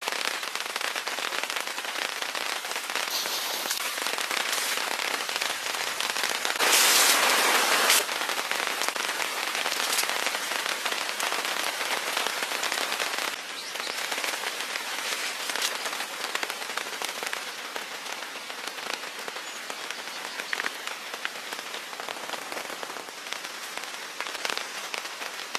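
Steady rain falling, a continuous hiss of drops, with a louder stretch lasting about a second around seven seconds in.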